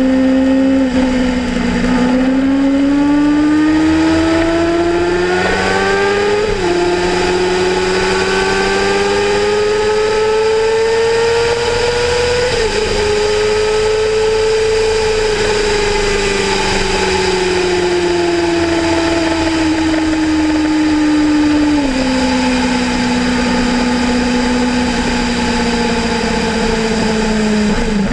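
Kawasaki Ninja ZX-6R inline-four sportbike engine under way: the revs climb and drop sharply at two upshifts, then sink slowly as the throttle eases off, step down once more and hold steady at cruise. Steady wind rush runs underneath.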